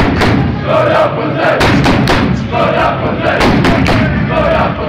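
Ice hockey fans chanting in unison, a short shouted phrase about once a second, with loud thumps among the chant.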